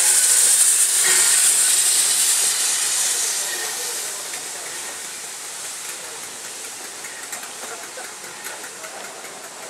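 BR Standard 7MT 'Britannia' class 4-6-2 steam locomotive 70000 running light engine, passing close by with a loud steam hiss. The hiss fades from about three seconds in as the engine moves away, leaving a faint hiss and some light clanking.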